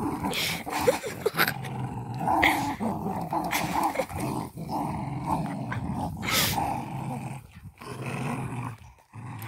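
Puppies growling almost without a break as they play tug-of-war over a fabric toy, with a few sharp scuffles and snorts between the growls. The growling is play, not aggression.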